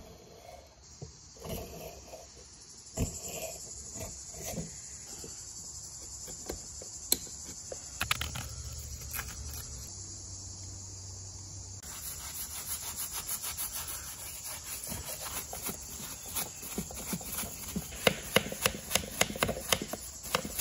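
A screwdriver scraping caked, greasy dirt off the old iron parts and gear of a jack, with scattered scrapes and knocks. About twelve seconds in, a paintbrush starts scrubbing the wet metal parts: a steady hiss with many quick clicks, growing busier toward the end.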